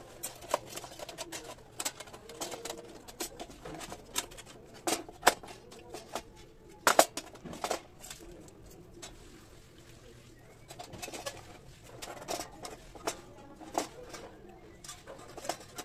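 Thin titanium panels and strips of a folding wood stove clicking and clinking as they are slotted together by hand, in scattered sharp metallic taps, the loudest a few seconds in. A bird coos softly in the background.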